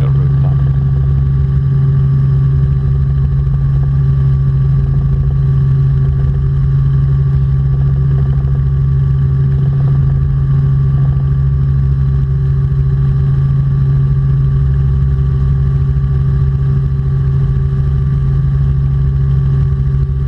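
Robinson R44 Clipper II helicopter in flight: a steady, unchanging drone of engine and rotors with a strong low hum.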